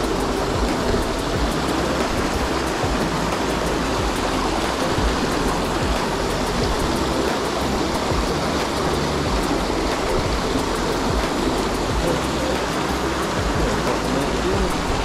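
Small waterfall and hill stream rushing steadily into a rock pool, a continuous even wash of water noise.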